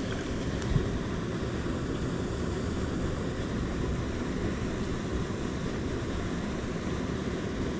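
Steady low rumbling noise on a body-worn camera's microphone, with one faint tick about three quarters of a second in.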